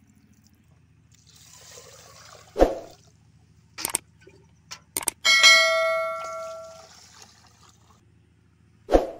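Water poured over rice and dal in an aluminium pot as they are washed, with several sharp knocks of the metal pot. About five seconds in the pot is struck and rings with a bell-like metallic tone that fades over a second and a half.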